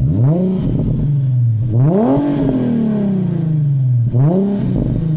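2008 Infiniti G35x's 3.5-litre VQ V6 revved while standing, heard through a modified exhaust. Three throttle blips, the pitch climbing and falling back each time; the middle one goes highest and sinks back slowest.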